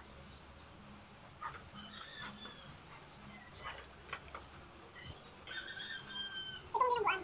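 Chickens calling, the loudest call coming near the end, over a steady run of rapid high chirps, about four or five a second.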